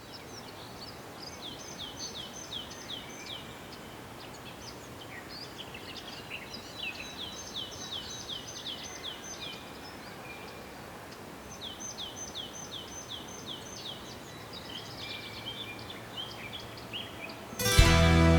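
Birds singing over a steady outdoor hiss. One bird sings three phrases of quick, evenly repeated high notes that fall in pitch, with scattered chirps between. Near the end, loud music comes in suddenly.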